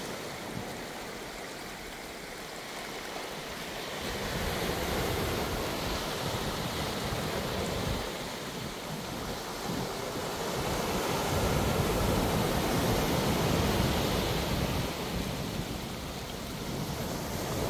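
Ocean surf breaking and washing up the shore, swelling and easing every few seconds, mixed with shallow water running over sand, with some wind rumbling on the microphone.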